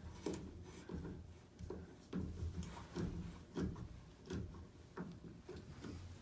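Short threaded shower extension pipe being screwed by hand into a threaded coupling: a series of short rubbing clicks of threads and fittings, one every half second or so.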